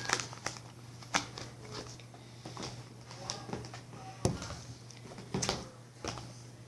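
Slime and plastic containers being handled: scattered light clicks and taps, with a few dull knocks, the clearest about four and five seconds in.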